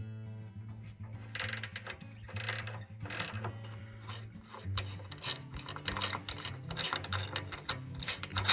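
Socket ratchet clicking in quick runs as it loosens the bolt holding a snowblower carburetor's float bowl.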